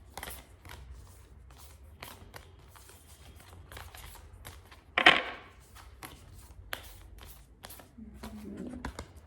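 Oracle cards being shuffled and handled: many small flicks and clicks of card stock, with one louder card slap about five seconds in.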